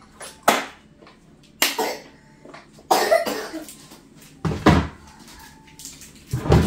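Small household items being handled on a cluttered desk and dropped into a plastic wastebasket: a handful of separate knocks and clatters, with heavier thuds past the middle and near the end.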